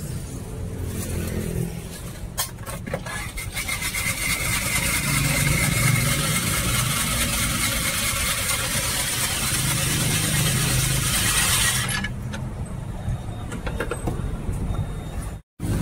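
Hand-cranked cast-iron ice shaving machine shaving a block of ice, a loud grinding scrape that starts about three seconds in and stops abruptly near the end, over a low rumble.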